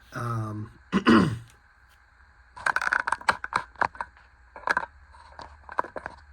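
Two short wordless vocal sounds falling in pitch, then a few seconds of irregular clicks and rattles from small objects being handled.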